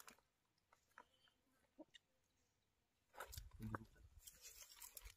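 Near silence, with faint chewing and small scattered clicks of people eating by hand, and a brief faint low sound about three seconds in.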